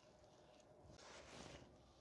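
Near silence: quiet room tone with a faint, brief soft noise about a second in.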